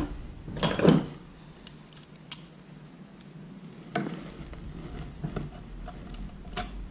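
Scattered light metallic clicks and ticks of cleco pliers setting cleco fasteners through a hydrofoil and an outboard's anti-ventilation plate, with a brief louder scraping burst about a second in.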